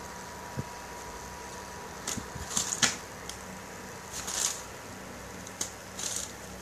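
Plastic carrier bag crinkling in short scratchy bursts as a kitten pushes into it and paws at it. The bursts come about two seconds in, again near three and four and a half seconds, and twice near the end, over a steady background hum.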